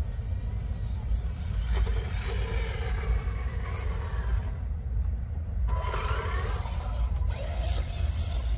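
Radio-controlled monster truck's electric motor whining and changing pitch as it drives, in two bursts about two seconds in and about six seconds in, over a steady low rumble.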